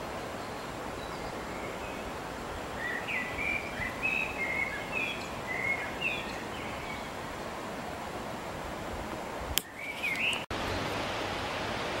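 Steady rushing of distant falling water from the Uchan-Su waterfall, with a songbird singing short chirping phrases over it for a few seconds in the middle. Near the end a sharp click and a brief dropout break the rushing, which then comes back slightly louder.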